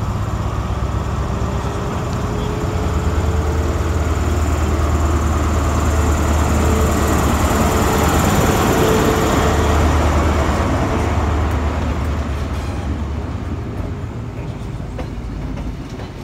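Class 43 HST diesel power car pulling away from the platform under power, its engine a deep hum with a faint whine above it. The sound is loudest as the power car passes about halfway through, then drops to the rumble of the passing coaches near the end.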